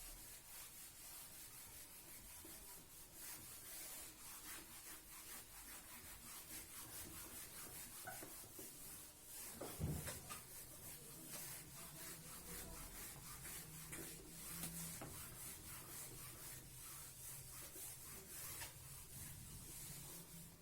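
Faint hand-writing: a run of short rubbing, scratching strokes, with a soft thump about ten seconds in.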